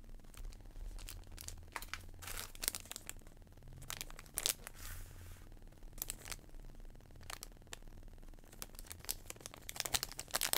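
Plastic and anti-static component bags crinkling and rustling as they are handled, in irregular crackles with louder clusters about two seconds in, around four and a half seconds, and near the end.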